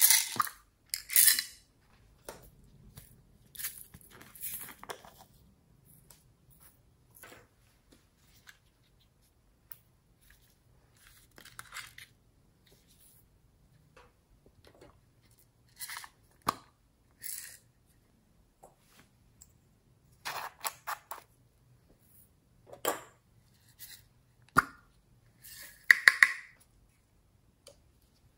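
Small plastic containers and packets being handled over a tray of slime: lids clicking, a packet crinkling, and beads and sprinkles scattering onto the slime. The sounds come as short, separate bursts with quiet gaps between them, the loudest at the start and near the end.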